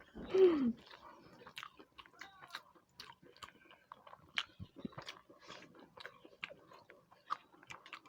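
Close-up chewing and eating: wet mouth clicks and small crunches, a few a second at irregular intervals. A short voice sound falling in pitch opens it.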